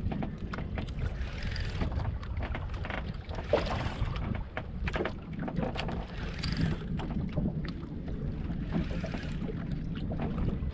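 Outrigger boat under way: a steady low rumble with water splashing against the hull and outrigger every two to three seconds.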